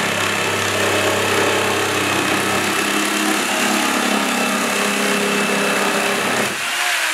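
GALAX PRO corded jigsaw running and cutting a curve through plywood, a steady motor whine with the blade's rasp. About six and a half seconds in, the sound changes and the low hum drops away.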